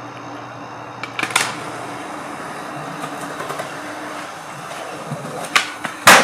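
Skateboard wheels rolling on pavement with a steady rumble. Sharp board clacks land about a second in and again near the end, with the loudest at the very end.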